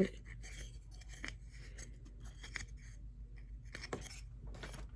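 Faint handling sounds: scattered light clicks and soft rustling as small objects and packaging are handled, with a few sharper ticks about a second and a quarter apart.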